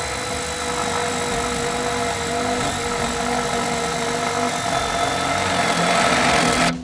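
Power drill running steadily with a carbide-tipped lineman's bit boring into a fiberglass composite utility pole. The drilling grows a little louder and harsher near the end, then stops abruptly.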